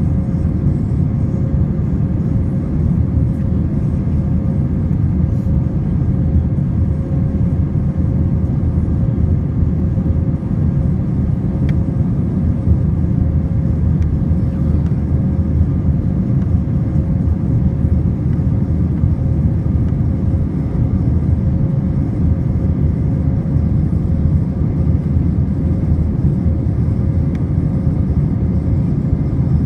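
Steady low cabin noise of a jet airliner in flight, heard from a window seat: engines and rushing air with a faint constant hum, during the climb after takeoff.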